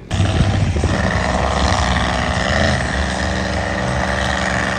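Monster truck engines running loud and steady on a muddy dirt track, a low rumble with a steady high whine over it, starting abruptly at the beginning.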